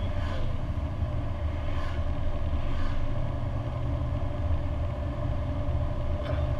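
Lancia Delta HF Turbo cruising at a steady speed, its engine and road noise heard from inside the cabin as an even low rumble with a steady hum.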